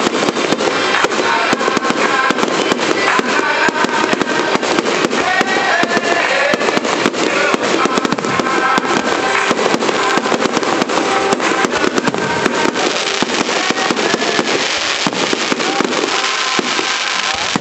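Fireworks display going off in rapid succession: many bangs and crackles a second, close enough together to run into a continuous rattle.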